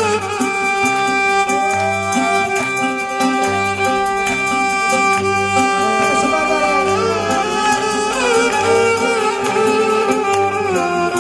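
Live Greek folk dance music from a small band: a violin holds a long note and then plays the melody over a steady, regular accompaniment beat.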